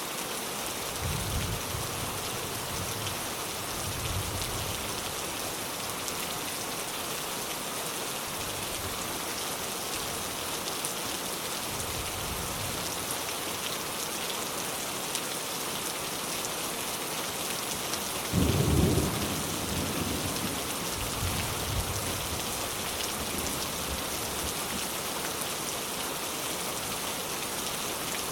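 Steady rain with distant thunder rumbling low several times; the loudest rumble comes about two-thirds of the way through.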